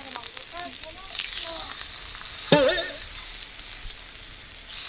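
Pork belly strips sizzling on a hot black steel griddle over a gas burner, a steady hissing sizzle. The sizzle is not what it should be: the burner's gas had run out, so the griddle is not hot enough.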